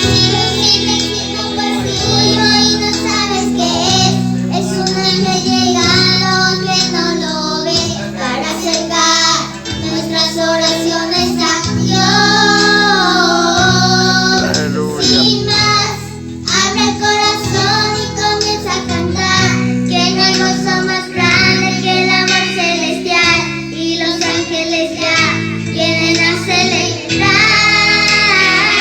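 A young girl singing a religious song over instrumental backing music.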